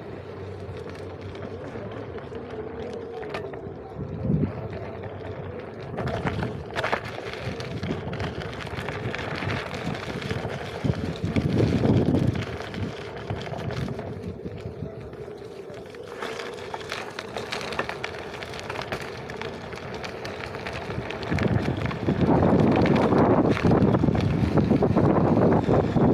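Wind buffeting the microphone during a Onewheel ride, with a steady hum underneath; the wind rises in gusts and becomes much louder about 22 seconds in.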